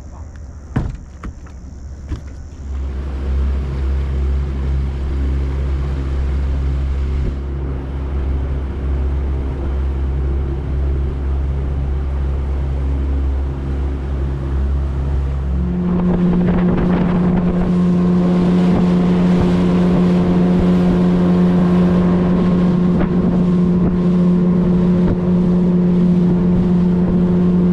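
Boat outboard motor running at low speed, steady, then opened up about sixteen seconds in to a higher, louder, steady pitch as the boat gets under way.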